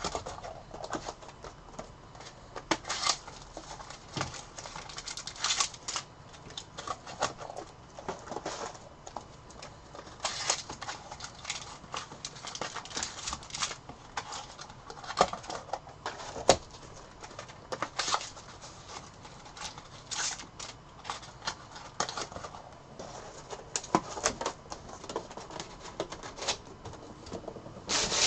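Bowman baseball trading cards and their packs being handled: irregular clicks, snaps and rustles as cards are slid and flipped, with a few sharper snaps.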